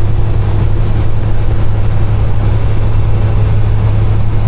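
Kenworth semi truck heard from inside the cab: a steady, loud, low engine drone with road noise, as of the truck underway.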